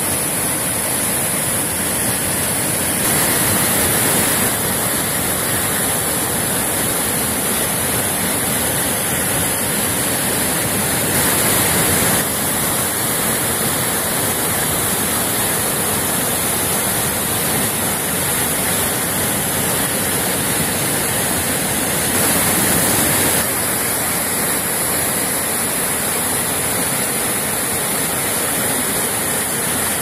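Waterfall running high after heavy rain, white water pouring over boulders in a steady, loud rush, with a few short stretches slightly louder.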